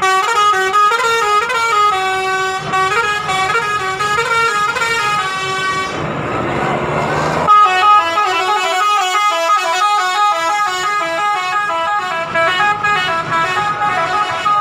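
Indonesian bus 'telolet' multi-tone horn playing a quick tune of stepping notes. About six seconds in, a rushing noise takes over for a second or so before the horn tune starts again.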